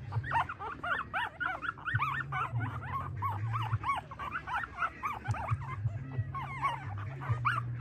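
Newborn puppies squeaking and whimpering while they nurse: a rapid stream of short, high squeaks that rise and fall, several a second, over a low steady hum.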